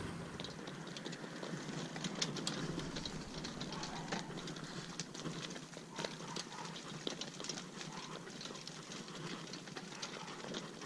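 A pony's hooves clopping and a light two-wheeled Hartland Piccolo cart rolling over gravel: a steady stream of irregular sharp clicks and crunches.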